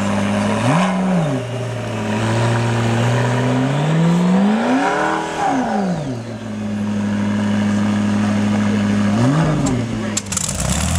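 McLaren P1's twin-turbo V8 idling steadily and being revved. It gets a quick blip about a second in, a longer rise and fall in revs around the middle, and another quick blip near the end.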